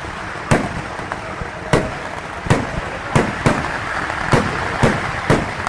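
Fireworks going off: about eight sharp, loud bangs at irregular intervals, over a continuous noisy din.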